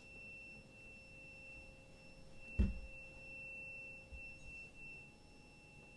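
Steady high-pitched electronic tone with a fainter lower hum beneath it; a single dull thump about two and a half seconds in.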